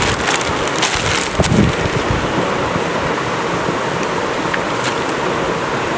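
Steady rushing background noise, with a few short clicks and crackles in the first second and a half and once more near the end.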